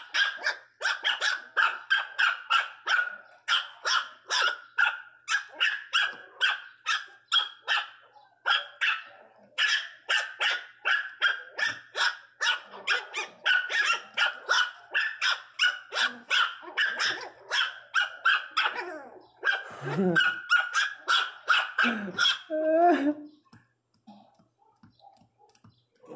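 Miniature pinscher puppies barking angrily in a squabble over a bone: a rapid, unbroken run of high-pitched yapping barks, about three or four a second, with a few lower growls mixed in near the end before the barking breaks off.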